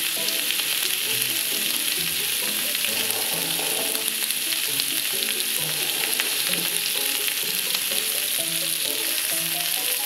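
Hanwoo chuck flap (salchisal) beef sizzling steadily on a hot griddle plate, with soft background music.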